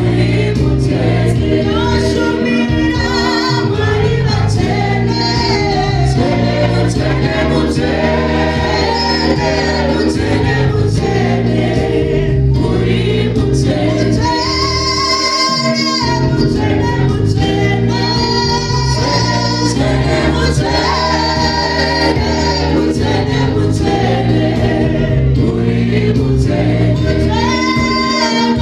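Live Shona gospel worship song: a female lead singer with backing vocalists singing into microphones over steady instrumental backing.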